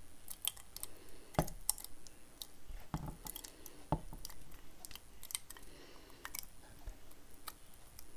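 Spatula scraping thick, sticky chutney out of a non-stick pan into a glass jar: soft wet squelches and plops with scattered light clicks, and a few sharper knocks of the spatula against the pan or jar.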